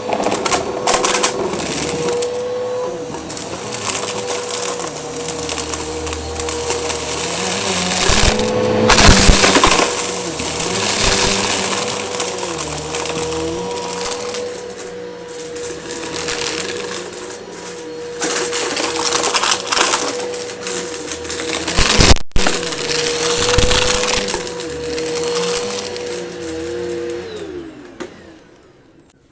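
Eureka vacuum cleaner running with a steady motor whine while crunching, crackling debris and fluff are sucked up along the edges. Near the end the motor winds down and the sound fades.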